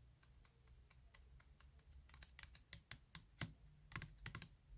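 Faint, irregular light clicks and taps from handling the opened speaker's parts. They come thicker and a little louder from about two seconds in.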